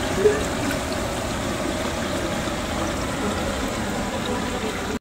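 Chicken pieces sizzling steadily as they fry in hot oil in a pan, with one brief louder burst near the start as the pieces are turned.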